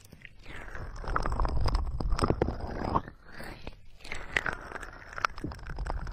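Fingers rubbing and cupping the silicone ears of a binaural microphone: close, muffled swishing strokes with a deep rumble and a few small clicks. The strokes ease off about halfway through, then pick up again.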